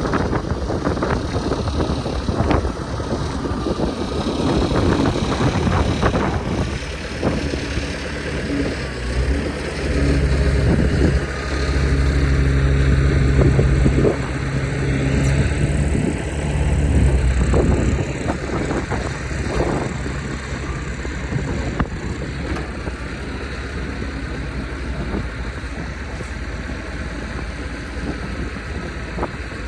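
Tractor engine running close by, swelling louder for several seconds in the middle and then settling back down.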